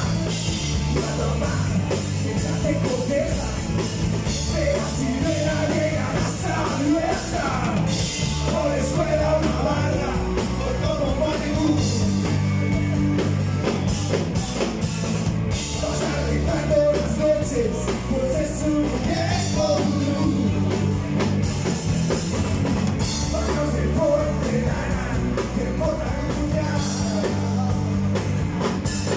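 Live rock band playing, with electric bass, electric guitar and drum kit under a man's lead vocal.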